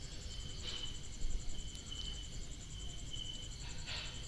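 Oil sizzling faintly around potato-onion fritters shallow-frying in a pan, with a short utensil noise about a second in as they are turned. A cricket chirps in a series of short high notes throughout.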